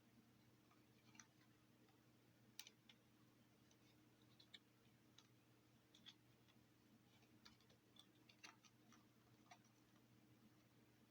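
Near silence with a faint steady hum, broken by a dozen faint, irregular clicks of plastic vacuum cleaner parts being handled.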